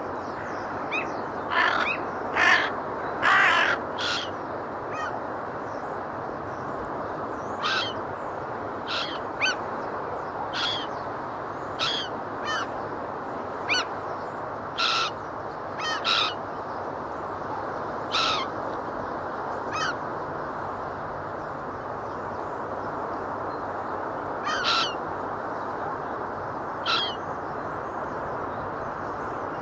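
Gulls calling: short, harsh cries, several in quick succession in the first few seconds, then scattered single calls, over a steady rushing background noise.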